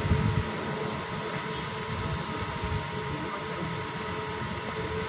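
Steady mechanical hum, like a fan or air conditioner running, with a faint constant tone and low rumble underneath.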